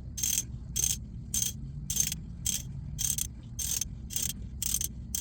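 Hand ratchet wrench clicking in short, even strokes, about two a second, as the differential's pinion nut is tightened back down a quarter turn at a time after a new pinion seal is fitted.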